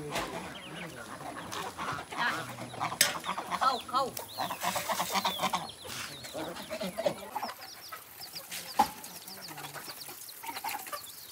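Farmyard poultry calling with many short, quickly gliding calls, busiest in the first half and thinning out after about six seconds. Later there are sparse small clicks as the geese peck at feed in a metal bowl.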